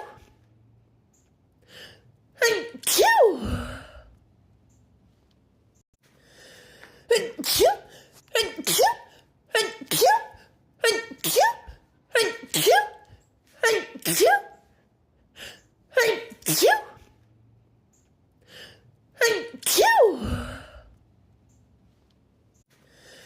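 A woman sneezing in a fit: one sneeze, a short pause, then about a dozen sneezes in quick succession, roughly one a second, followed by two more pairs.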